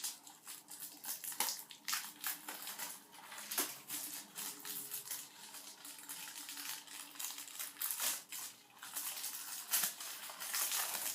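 Plastic shrink-wrap being peeled off a Blu-ray case and crumpled in the hands: irregular crinkling and crackling with scattered sharp clicks.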